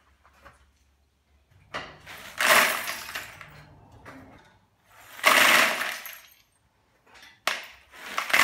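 Nails and ash being scraped and scooped off the grate inside a steel locomotive firebox: three loud bursts of rattling, clinking metal, each about a second long.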